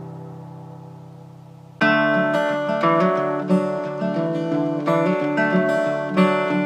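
Background music: the last chord of one song fading out, then a new song starting with strummed acoustic guitar a little under two seconds in.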